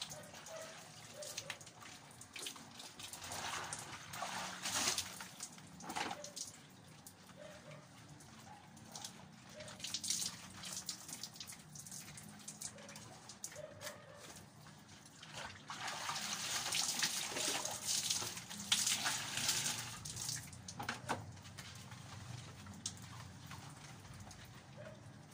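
Wet laundry being handled by hand: water splashing and dripping as soaked clothes are lifted from a plastic basin and hung up. It comes in irregular bursts, with the longest, loudest stretch about two-thirds of the way through.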